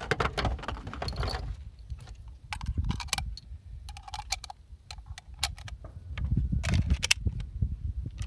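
Metallic clicks and cartridges clinking as surplus rifle ammunition and a Swiss K31 rifle are handled during reloading. Gusty wind rumbles on the microphone underneath.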